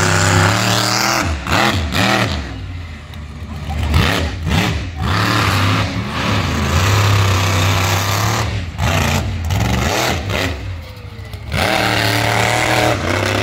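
Monster truck engine revving up and falling back over and over, loud throughout, with several short drops where the throttle is lifted.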